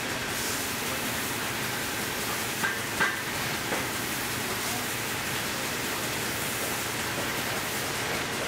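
A steady, even hiss, with two sharp knocks close together near the middle and a fainter one just after.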